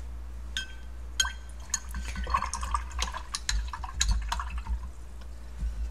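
Paintbrush being rinsed in a jar of water: a run of small splashes and clinks, beginning about half a second in and dying away shortly before the end.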